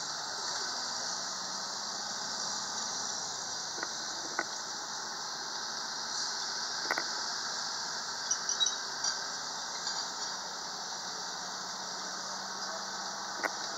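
Tracked self-propelled howitzer driving across a field, with a steady high-pitched squeal and a running rumble. A few light knocks come and go.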